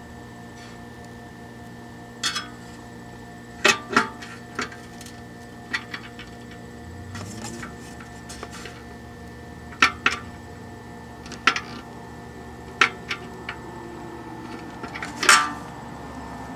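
Irregular sharp metallic clicks and clinks of a long M5 socket wrench seating on and turning the hex nut of a speaker binding post on a metal chassis, about a dozen in all, the loudest near the end, over a steady faint hum.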